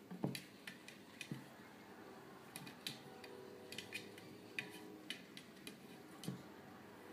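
A kitten's claws and paws clicking and scratching on the inside of a wooden bowl as it scrambles around, faint irregular taps, the loudest about a quarter second in.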